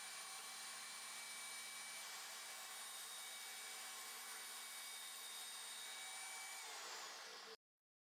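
Table saw motor running with a steady whine as a walnut board is fed past the blade to rip a fresh edge. Near the end the pitch starts to fall, then the sound cuts off abruptly.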